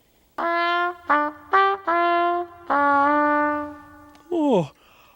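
A bugle plays a slow call of five held notes: one long, two short, then two long, the last stepping lower. Near the end a voice gives one falling, sigh-like sound.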